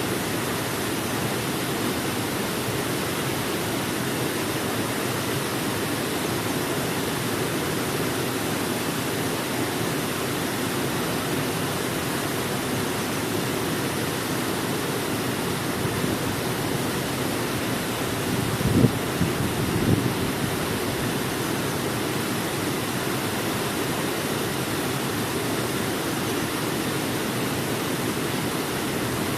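Waterfall rushing steadily. About two-thirds of the way through, a few short low thumps stand out briefly above it.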